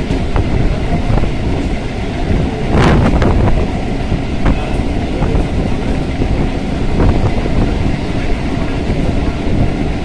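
Passenger train running at speed, heard from inside the carriage by the window: a steady rumble and rattle with scattered wheel clicks, and a louder rush about three seconds in.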